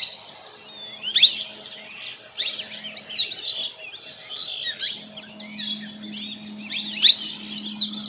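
Plum-headed parakeets calling: a rapid, continuous run of short, high whistled notes that sweep sharply up and down, many of them overlapping. This is the species' repeated 'tui-tui' call.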